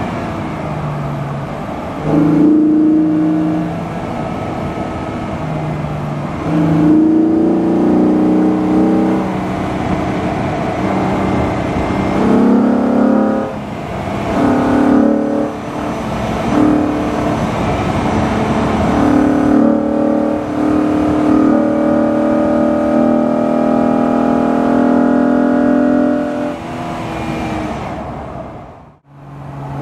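Opel Omega B's 3.2 V6 engine with a Jetex rear silencer and K&N air filter, pulling along the road. Its note rises and falls repeatedly as the car accelerates and eases off. The sound drops away sharply for a moment near the end.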